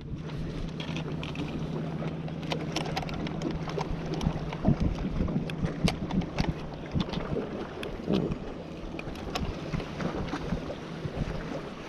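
Wind on the microphone and water around a small fishing boat, with a low steady hum that fades about halfway and many scattered knocks and clicks.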